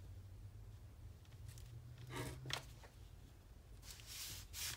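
Pilot G2 gel pen drawing short lines on watercolor paper: faint scratching of the pen tip, in a short stretch about two seconds in and again near the end.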